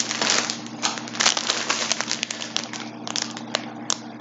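Packaging being handled and unwrapped, crinkling and rustling in irregular sharp crackles, over a steady low hum.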